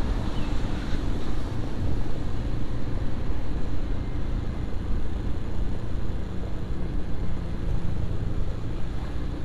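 Motorcycle running along a city street while being ridden, a steady engine and road sound heard from the rider's position.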